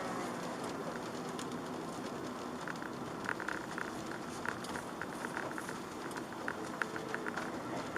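Steady road and wet-tyre noise heard inside a car's cabin, with irregular light taps of raindrops on the car starting about three seconds in.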